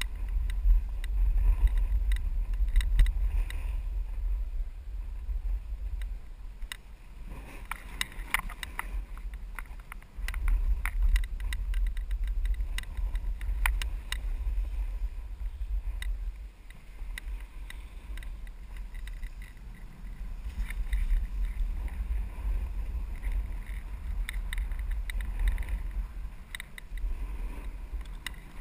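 Wind buffeting the microphone of a snowboarder's action camera during a fast run, a heavy low rumble that rises and falls, mixed with the snowboard's edge scraping and chattering over groomed snow.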